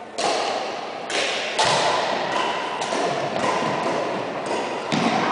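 Badminton rally: a series of sharp racket strikes on the shuttlecock, about five hits roughly a second apart, each ringing on in the echo of a large gym.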